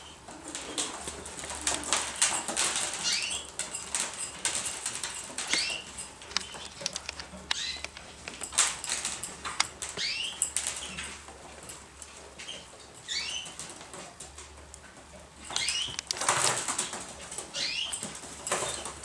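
Pigeons moving about: wings flapping and clattering, with scuffling and many sharp clicks, and short high chirps repeated every second or two.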